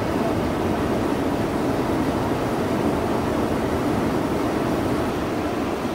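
Steady roar of heavy, storm-driven ocean surf with wind noise, an even rushing sound with no single break standing out.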